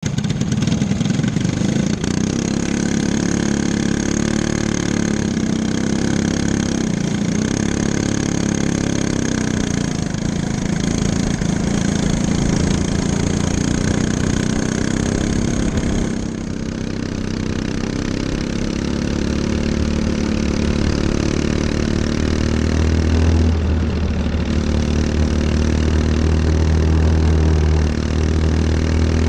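Racing go-kart engines running, heard from onboard a kart: several engines together at first, then from about halfway mostly the kart's own engine, a strong low drone whose pitch slowly rises.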